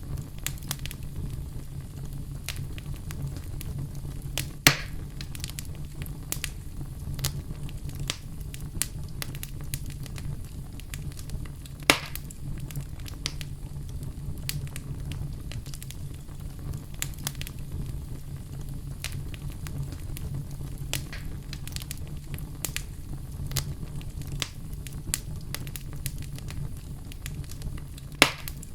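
Campfire crackling steadily over a low rumble of burning wood, with many small snaps and three louder pops: about five seconds in, about twelve seconds in, and near the end.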